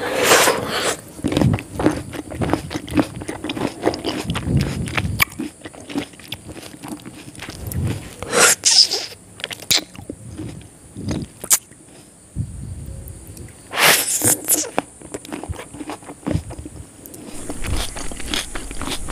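Close-up eating sounds of mutton biryani eaten by hand: fingers working through the rice, chewing and wet mouth noises made up of many small clicks, with a few louder wet bursts near the start, about eight seconds in and about fourteen seconds in.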